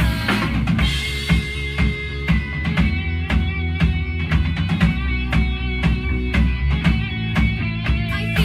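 Rock band playing an instrumental passage. A TAMA drum kit keeps a steady beat with kick and snare under electric bass and a distorted electric guitar.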